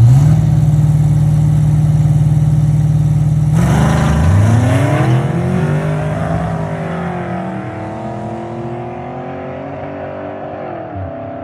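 Car engine held at steady high revs for about three and a half seconds, then the car launches: the revs climb, dip and settle as the sound slowly fades away.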